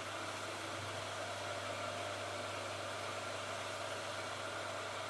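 Hot air gun running on a low heat setting, shrinking heat-shrink tubing: a steady blowing hiss over a low hum.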